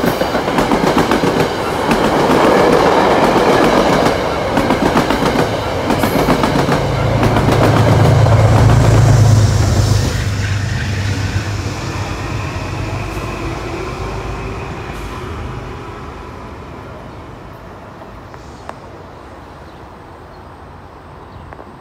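Metro-North commuter train passing close by, its wheels clattering over the rail joints, with a strong low hum about seven to ten seconds in. It then fades to a low rumble as the train draws away.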